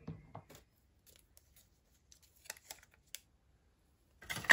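Small ticks and rustles of paper and adhesive being handled, then a short, louder rasp near the end as a roll of adhesive tape is handled.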